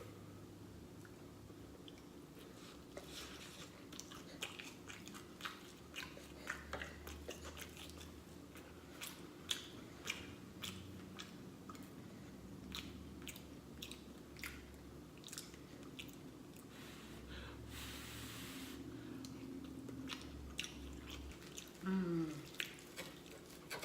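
Close-miked mouth sounds of someone eating: chewing with many small wet clicks and lip smacks. Near the end there is a brief falling vocal sound.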